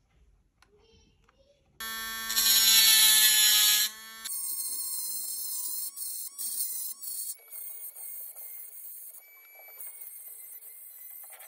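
Small handheld rotary tool with a pointed burr running with a steady high whine and grinding into a diecast metal car body to cut out the door openings. It is loudest about two seconds in, then turns to a quieter, hissier grinding that changes abruptly several times.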